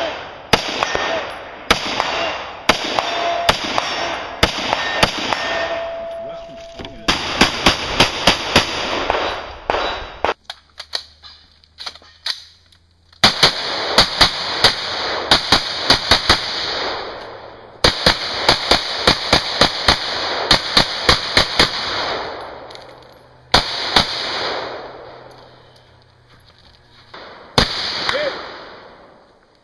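Black Rain Ordnance AR-15 rifle firing a course of fire. Spaced single shots come first, then several fast strings of shots, then a few more single shots near the end. Steel targets ring with a clang when hit.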